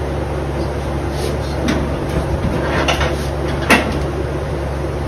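Sheet-metal knocks and rattles from a 1964 Chevy Impala's chrome grill assembly being worked loose and pulled off the front of the car: a few sharp knocks, the loudest about three-quarters of the way in. Under it, the steady low hum of a portable cooler's fan.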